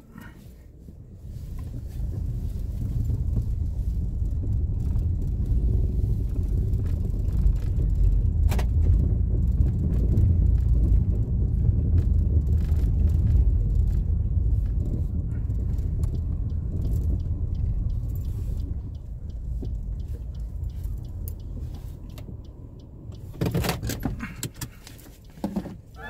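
Car driving, heard from inside: a steady low rumble of engine and road noise that swells about two seconds in and fades off near the end, with a few light clicks, the clearest about eight seconds in.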